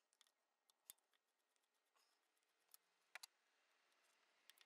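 Near silence, broken by a few faint, sharp metal clicks: a screwdriver and fingers working the top cover of a Weber DGEV carburettor, including a quick double click a little after three seconds in.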